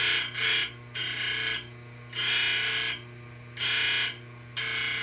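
Simington 451c chainsaw-chain grinder's stone grinding a saw-chain cutter in about six short touches, each a harsh grinding burst of under a second, over a steady hum.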